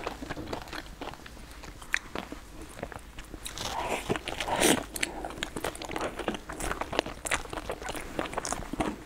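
Close-up eating sounds: biting into and chewing soft filled dumplings, with small sharp clicks throughout. The loudest bite comes a little past halfway.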